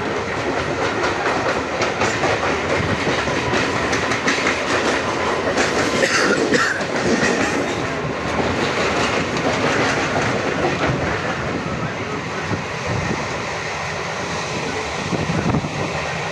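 Moving train: steady rumble of the carriages with the wheels clattering over the rail joints.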